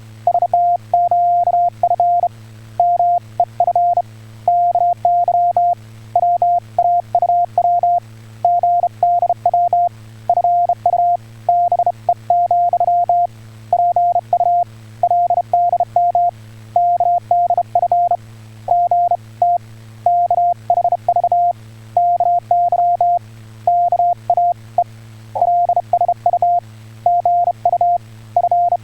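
Morse code (CW) tone in Korean telegraph code: a single steady beep pitch keyed on and off in short dots and longer dashes, with brief gaps between characters, over a low steady hum.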